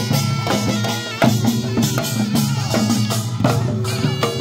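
Korean pungmul percussion band playing a driving rhythm: janggu hourglass drums and buk barrel drums beaten in quick repeated strikes, with ringing tones between the hits.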